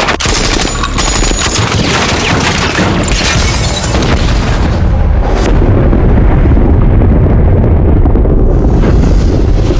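Movie battle sound effects: rapid gunfire for the first few seconds, then a long, loud, low rumbling boom of heavy explosions that carries on to the end.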